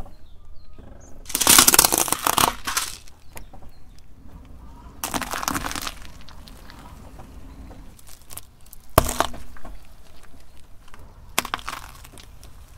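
Car tyre rolling over and crushing small objects one after another: four bursts of crunching and cracking, the first the loudest, with quieter stretches between.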